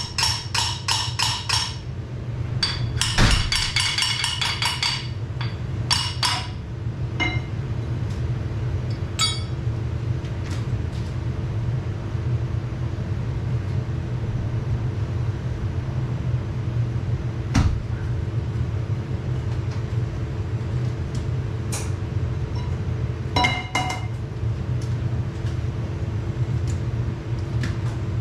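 Two quick runs of ringing metal-on-metal hammer blows in the first five seconds, then a few scattered knocks and clinks, over a steady low machine hum.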